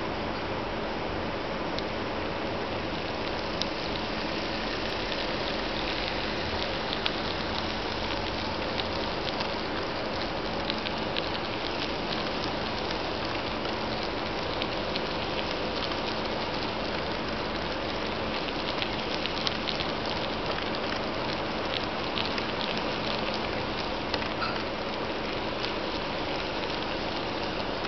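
Fleischmann model train, a DB class 41 steam locomotive with seven express coaches, running on model track: a steady rolling rush with a faint motor hum and scattered small clicks from the wheels on the rails.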